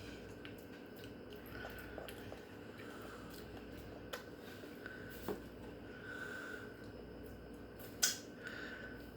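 A small child chewing and crunching potato chips, with scattered small clicks and a sharper click about eight seconds in, over a faint steady hum.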